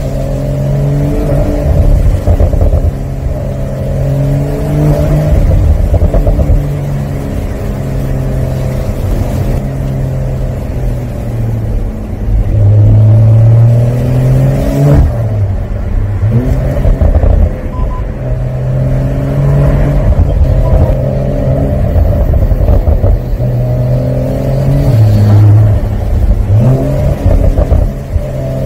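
Porsche 911 (992) Carrera 4S Cabriolet's twin-turbo flat-six engine and exhaust, heard from the open cockpit with the top down, as the car drives and accelerates. The engine note rises and drops several times over steady road and wind rumble.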